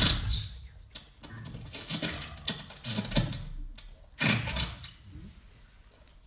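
A man's voice giving the safety rules as unintelligible mouth noises, short bursts of hissing and grunting sounds in place of words, about one a second, trailing off near the end.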